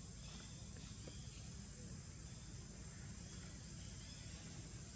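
Faint outdoor forest ambience: a steady high insect drone over a low rumble, with a few faint short chirps.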